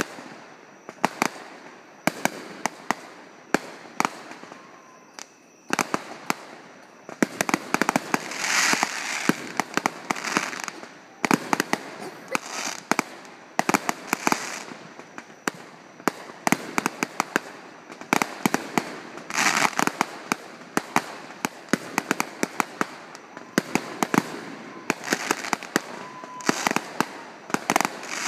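Fireworks finale: a rapid, continuous string of bangs from aerial shells, with crackling bursts mixed in. The barrage is sparser at first and grows much denser about six seconds in.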